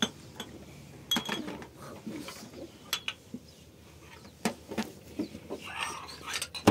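Small glass tea glasses and a jar clinking against each other and a brass tray as they are set out: about half a dozen separate light clinks, some with a short glassy ring.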